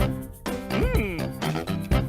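Playful children's background music with a steady beat; a sliding tone swoops up and back down about a second in.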